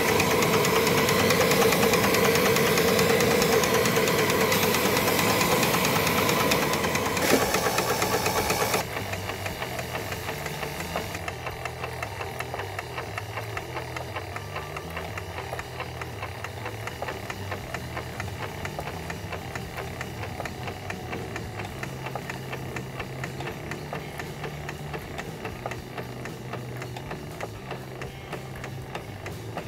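Small steam engine running fast on steam from the restored boiler, a rapid, even mechanical rhythm. Steam hisses loudly over it for about the first nine seconds, then cuts off, leaving the quieter running.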